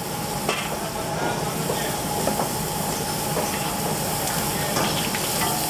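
Thin sauce boiling hard in an iron wok: a steady bubbling hiss, with a few light taps of a steel ladle against the pan.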